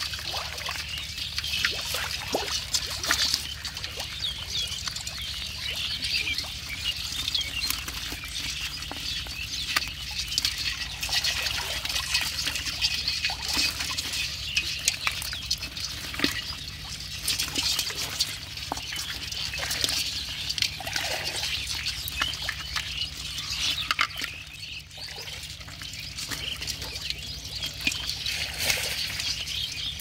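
Live crabs, with eels and small fish, stirring in a pot of water. Their legs and claws make a dense, continuous wet crackle of tiny clicks and scrapes, with small trickles of water.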